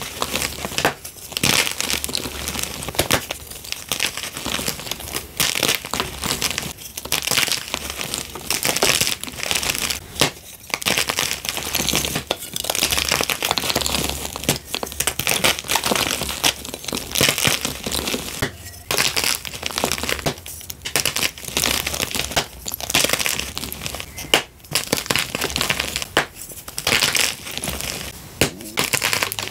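Blocks of gym chalk snapped and crushed in bare hands: sharp cracks as pieces break, amid near-continuous dry crunching as the chalk crumbles to powder.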